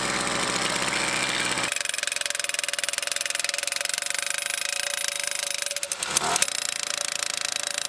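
Gas-powered post driver running at full throttle, rapidly hammering a steel T-post into the ground. The hammering starts abruptly, runs on steadily, and falters briefly about six seconds in.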